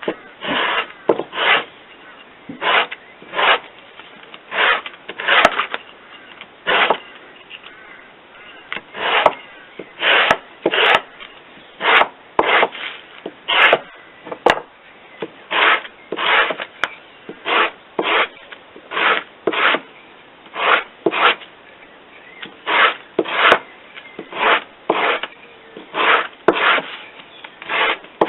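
A hand tool rubbing on wood in steady, repeated strokes, about one to two a second and often in pairs, like the push and pull of hand work on timber.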